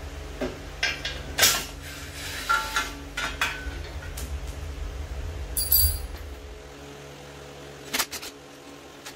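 Metal tools and parts clinking and knocking as they are handled, a dozen or so sharp strikes, several of them ringing briefly, over a low rumble that stops about two-thirds of the way through.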